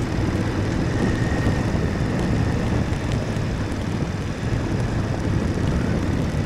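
BMW F850 GSA adventure motorcycle's parallel-twin engine running steadily at low speed on a dirt road, with wind rushing over the microphone.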